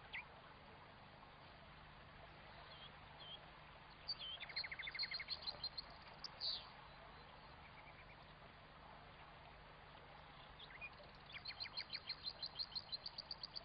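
Faint twittering of European goldfinches in two bouts: a quick run of chirps about four seconds in, then a longer rapid series of notes in the last few seconds, with quiet between.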